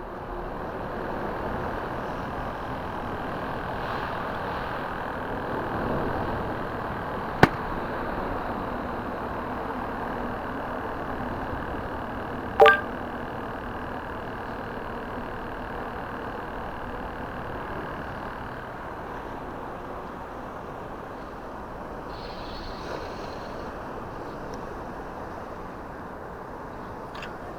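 Steady rushing outdoor background noise, with a sharp click about seven seconds in and a second, ringing click about five seconds later.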